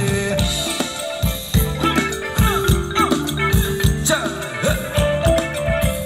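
Live band playing Thai ramwong dance music: a steady drum beat about twice a second under a sustained melody line.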